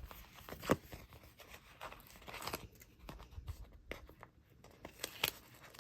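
Rubber stamps being popped out of a perforated sheet one at a time: scattered soft clicks with light tearing and rustling.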